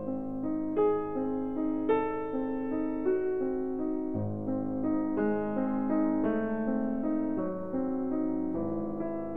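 Slow background piano music: held notes and chords, a new one struck about once a second.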